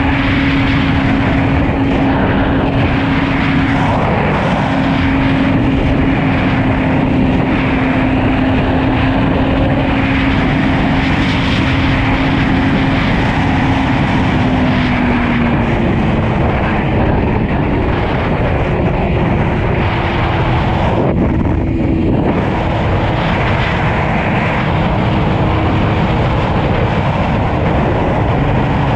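Suzuki GSX-R1000 K5's inline-four running at a steady cruise under heavy wind rush, as heard while riding. The engine note dips slightly about halfway through and settles on a higher steady note later.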